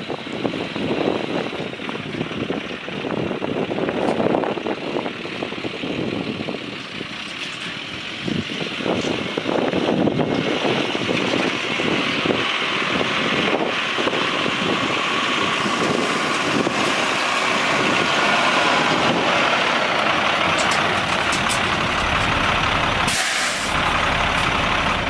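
International DT466 turbo diesel truck running. The sound is uneven at first, then gets louder and steadier about ten seconds in.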